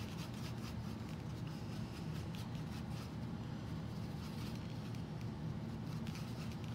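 Paintbrush mixing paint on a palette to blend orange: faint, soft scratching over a steady low hum of room noise.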